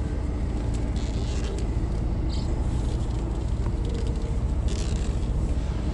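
Heavy-truck diesel engine running at low revs as the articulated truck is slowly edged into a tight parking spot: a steady low rumble.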